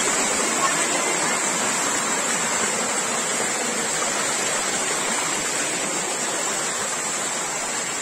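Water rushing steadily over boulders in a shallow rocky stream.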